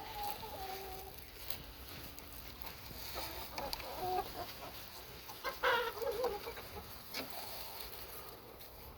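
Hens clucking, with a few short calls now and then.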